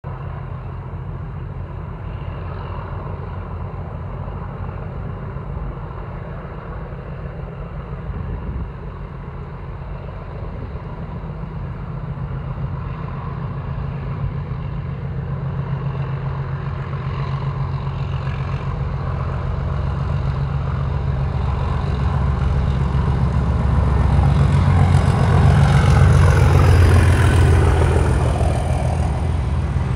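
Two Class 37 diesel locomotives working hard up a gradient, their English Electric V12 engines giving a deep, steady beat that grows louder as the train draws near. Near the end, wheel and rail noise from the passing coaches joins in.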